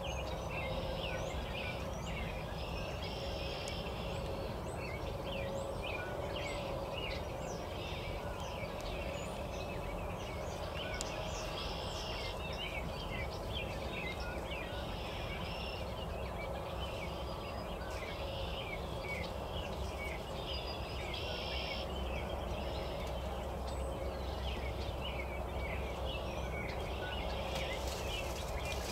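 Many small songbirds chirping, with short song phrases now and then, over a steady low background rumble.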